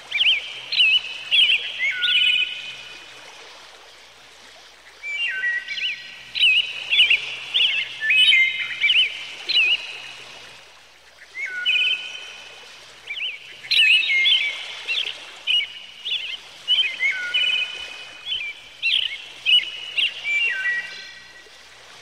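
A songbird singing phrases of clear, quickly sliding whistled notes in four bouts with short pauses between them, over a steady background hiss.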